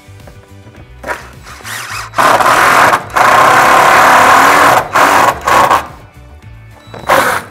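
Cordless DeWalt impact driver driving screws overhead into a door head track, running loudly in bursts: a long run starting about two seconds in, two short stabs near the middle, and a last short one near the end.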